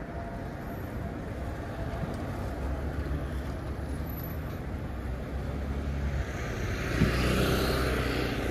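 City street traffic: a steady low rumble of vehicles, with one passing close about seven seconds in, its tyre and engine noise swelling and then easing off.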